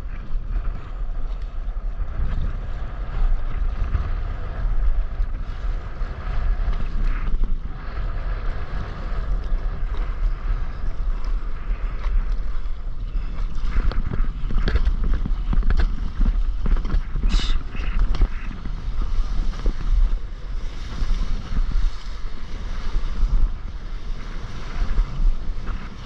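Wind rumbling on an action camera's microphone over water sloshing around a stand-up paddleboard, with sharper splashes in the second half as the board is paddled and runs through the water.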